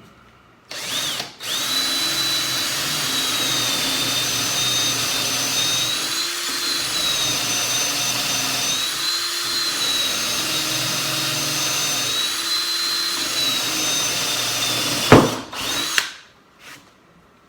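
Handheld Dremel rotary tool running at high speed with a steady high-pitched whine, fitted with a soft brush and polishing rust and grime off the vise's metal. It starts about a second in and stops near the end, with a sharp knock as it is switched off.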